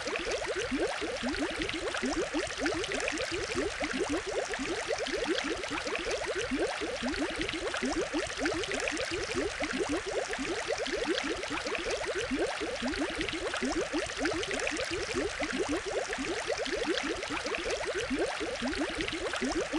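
Aquarium water bubbling and gurgling steadily: a dense stream of quick little rising bubble plinks over an even watery hiss.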